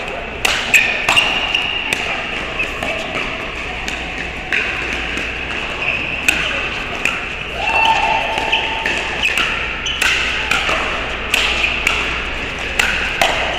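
Pickleball paddles popping a hard plastic ball in a quick rally at the net, sharp hits coming a second or less apart, echoing in a large hall, with fainter hits from neighbouring courts and a murmur of voices behind.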